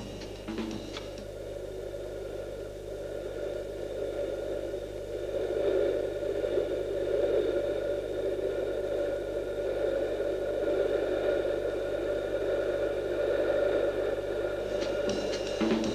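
A steady droning noise with faint sustained high tones above it, swelling over the first six seconds and then holding steady.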